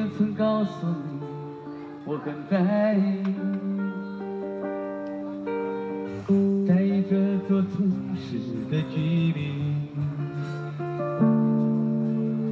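Live busking: an electric guitar played through a small battery-powered amplifier, with a singer's voice carried over it through a microphone and the same amplifier. Several phrases end in long wavering held notes.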